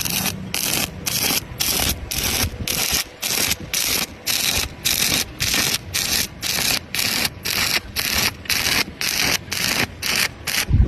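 Rhythmic back-and-forth scraping strokes of an abrasive tool worked by hand, about two and a half strokes a second, each a short rasping burst with a brief gap between.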